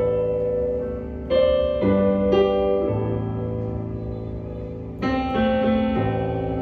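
Yamaha YDP-165 digital piano playing slow, sustained chords. New chords come in at uneven intervals, and each rings on as it fades.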